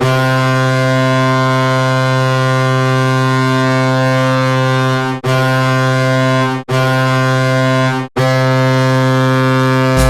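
Colorado Avalanche goal horn blowing a low, steady horn tone. It gives a long blast of about five seconds, two short blasts of about a second and a half each, then a fourth blast that carries on, with only brief breaks between them.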